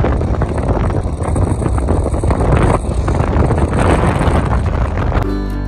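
Wind buffeting the microphone of a moving vehicle, with road noise: a steady rushing noise with a deep rumble. Acoustic guitar music comes in near the end.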